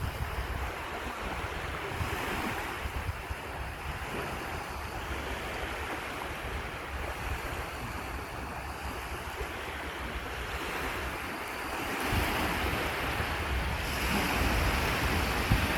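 Sea surf breaking and washing ashore, with wind buffeting the microphone; the surf swells louder about twelve seconds in.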